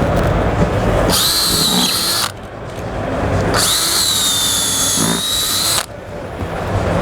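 Power drill boring holes in the wall for a TV mount's lag screws, in two runs of about a second and about two seconds, each a steady high motor whine.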